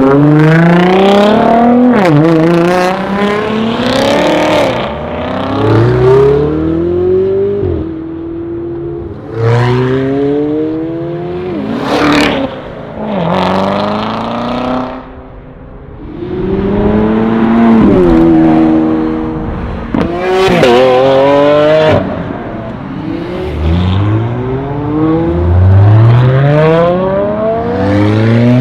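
Supercar engines accelerating hard one after another: each revs up in a rising sweep, drops sharply at every upshift and climbs again as the car pulls through the gears and passes by.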